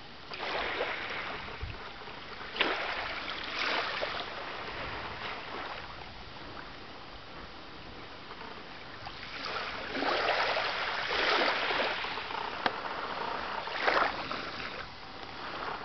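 Small waves lapping on a sandy shore, washing in as a few separate swells some seconds apart, the longest about ten to twelve seconds in.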